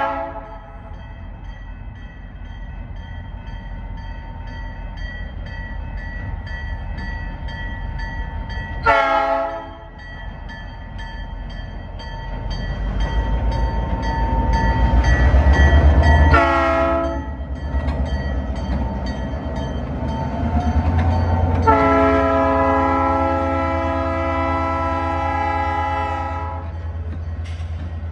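Diesel locomotive's multi-chime air horn sounding a salute: short blasts near the start, about nine seconds in and about sixteen seconds in, then one long blast of about four seconds near the end. The locomotive's diesel engine rumbles louder as it passes, and a grade-crossing bell rings steadily.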